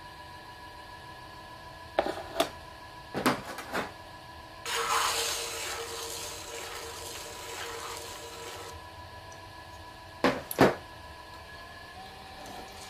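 A metal rib scraping the clay of a pour-over dripper as it turns on a potter's wheel, a rasping scrape of about four seconds, over the steady hum of the wheel. Before it a few sharp clicks of tools being handled, and two more sharp knocks near the end.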